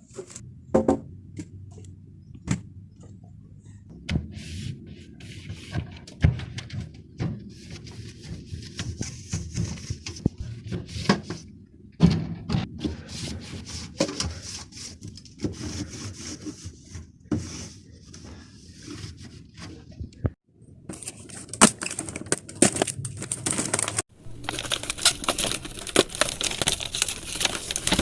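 Items being handled and set onto fridge shelves while restocking: scattered knocks, clinks, scrapes and rustles at irregular intervals. A steady hiss joins them for the last few seconds.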